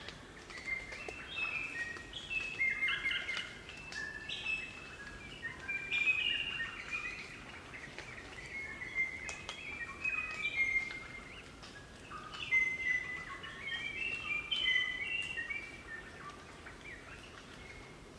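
A group of crimson rosellas singing and chattering: many short, clear whistled notes that overlap and step up and down in pitch, coming in three bouts and tailing off near the end.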